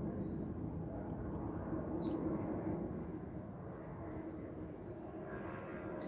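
Small birds giving short, high chirps a few times, over a steady low background rumble.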